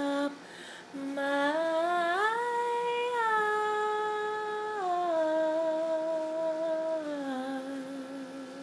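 A woman's unaccompanied voice humming the closing phrase of a gospel song. A short note and a pause are followed by a line that climbs over about a second, holds high, steps down in stages, and settles on a long low note with a slight vibrato.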